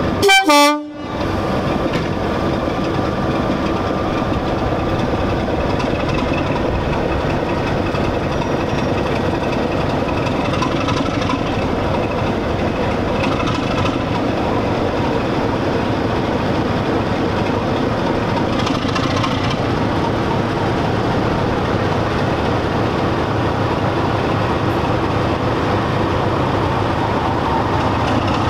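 British Rail Class 33 diesel locomotive's Sulzer eight-cylinder engine running steadily as the locomotive moves slowly off. A short, loud horn blast sounds about half a second in.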